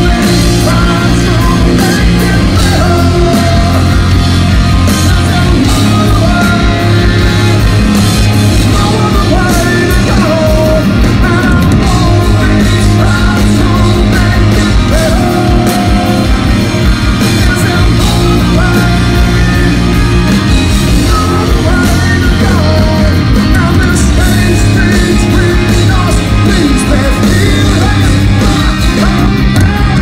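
Rock band playing live and loud: electric guitar, bass and drums, with a singing voice over them.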